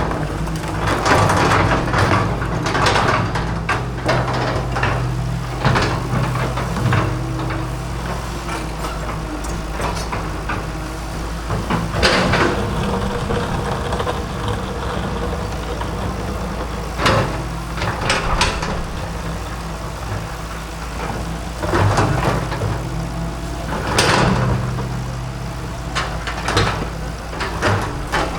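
Excavator diesel engine running steadily under load, broken by about six loud scraping and crunching bursts, the sound of the bucket tearing into a cement fence.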